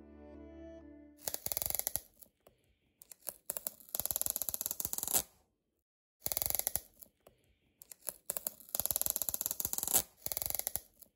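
Clear adhesive tape seal being peeled off a cardboard box, crackling in a series of short pulls with brief pauses between.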